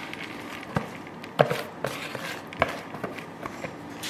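A spatula tapping and scraping in a glass baking dish while spreading rolled oats, a series of irregular sharp taps.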